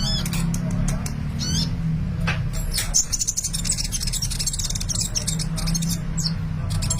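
A sunbird, the small songbird Indonesian keepers call 'kolibri', singing vigorously in rapid high chirps and fast twittering trills, with a steady low hum underneath.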